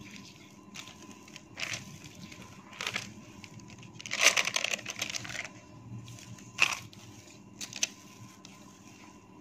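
Wooden rolling pin rolling out soft potato dough on oiled butter paper: brief rustles and crinkles of the paper every second or so, with a longer one about four seconds in.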